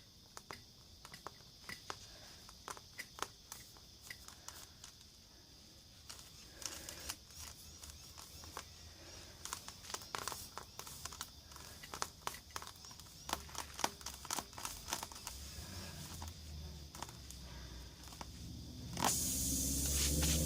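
Scattered small clicks and rustles of hand work on the tyre. Near the end a loud steady hiss starts: air escaping through the reamed puncture hole in the tyre.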